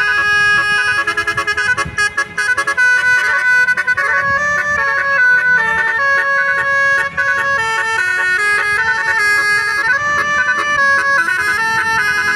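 Bus 'basuri' telolet horn playing a tune: several loud horn tones stepping from note to note, with quick pulsing runs in places.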